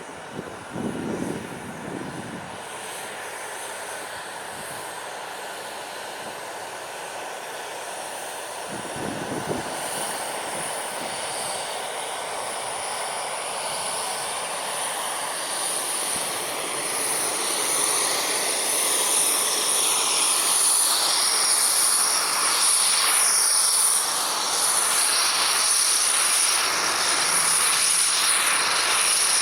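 Jet airliner's turbofan engines: a steady rushing roar with a high whine on top, growing gradually louder. There are two brief low thumps, one about a second in and one about nine seconds in.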